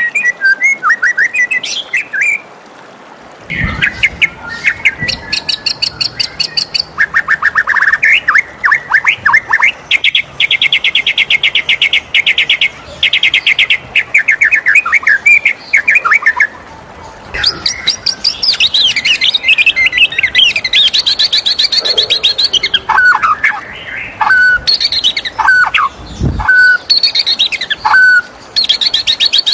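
White-rumped shama singing a long, varied song: fast rattling trills of rapidly repeated notes, quick warbled phrases, and near the end a series of short, sharply falling whistles.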